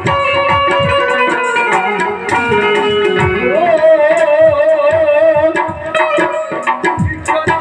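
Live folk band music: a plucked-string melody, likely the troupe's banjo, over regular tabla-like hand-drum strokes. A long wavering note is held from about halfway through.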